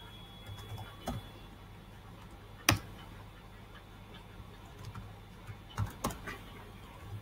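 Computer keyboard keystrokes, a few scattered clicks as code is typed, with one sharper click about two and a half seconds in and a quick cluster near six seconds, over a faint steady hum.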